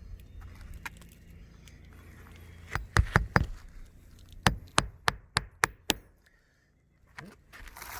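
Sharp knocking blows on the roof, like hammer strikes through a shingle into the wood beneath: a quick cluster of about four, then about five evenly spaced blows a second later.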